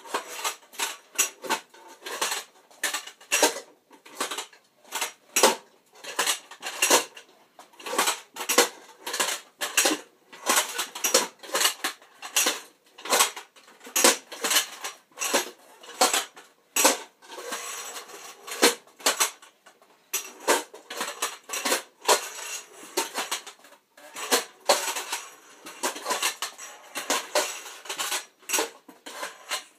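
Metal robot-costume stilt legs of aluminium tube clanking and rattling with every step as they are walked in, their metal bowl-shaped feet knocking on the floor. The knocks come a few each second, unevenly.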